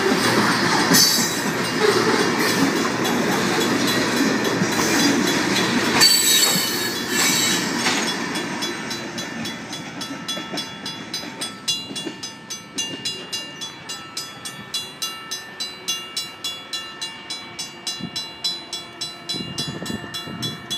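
Freight cars of a Union Pacific manifest train rolling past over the rails with a steady rumble, which fades out about eight to ten seconds in. That leaves the grade-crossing bells, one of them a Safetran mechanical bell, ringing in a steady rhythm of about two to three strikes a second.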